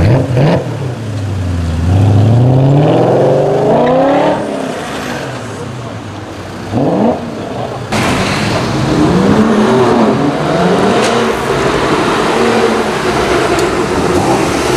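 BMW E39 M5's V8 accelerating away, its pitch climbing steadily, then a short sharp blip of revs about seven seconds in. After a cut about eight seconds in, another BMW M car's engine is heard revving, its pitch rising and falling.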